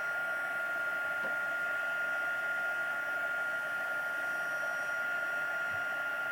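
Heat gun running steadily, a constant rush of blown air with a steady high whine over it.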